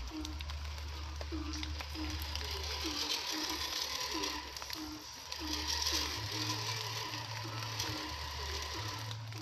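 Drivetrain of a 1/10-scale RC crawler jeep: its small electric motor and gears make a rhythmic ratcheting whir that repeats about twice a second as the truck crawls over wet forest ground, over a steady hiss.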